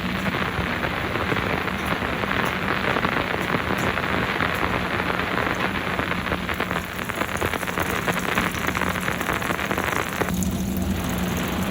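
Midea 13 kg top-load washing machine running mid-cycle, with a steady rush of water in the drum over a constant motor hum. About ten seconds in, the water rush drops away and the hum is left.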